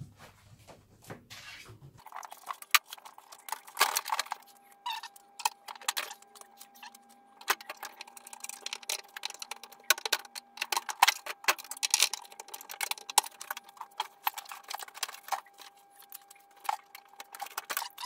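Irregular metallic clinks, clicks and knocks from a Panasonic washing machine's outer tub being fitted back into the cabinet and its suspension springs being hooked on.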